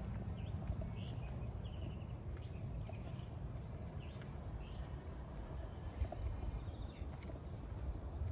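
Outdoor ambience: a steady low rumble with short, high bird chirps scattered through the first half, some of them falling in pitch.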